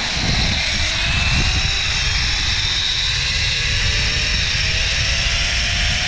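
Zipline trolley pulleys running along the steel cable, a whir that slowly rises in pitch as the trolley gathers speed, over a heavy rumble of wind buffeting the microphone.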